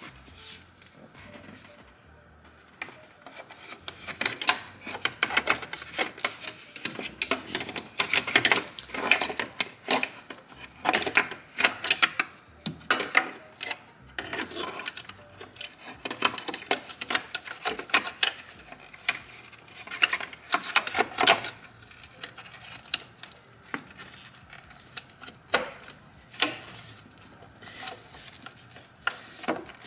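Gloved hands rubbing, scraping and pressing on parts in a car's engine bay: irregular rustling and scraping strokes that start a few seconds in and keep on in quick runs.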